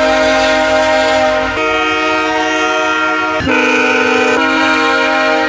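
VIA Rail diesel locomotive air horns blowing long, loud chords of several notes at once. The chord changes abruptly three times, about a second and a half in, near three and a half seconds and again about a second later.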